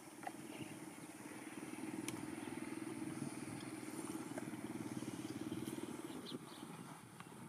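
A small engine running steadily in the background, building about a second in and fading away near the end, with a few faint clicks over it.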